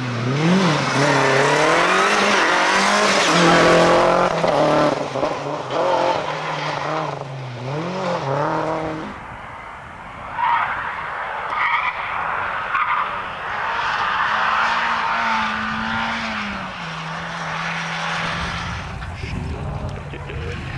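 Rally car engines revving hard at speed, the pitch repeatedly climbing and dropping with gear changes, with tyres skidding on the loose surface. About nine seconds in there is a cut to another car passing, and a deep rumble builds near the end.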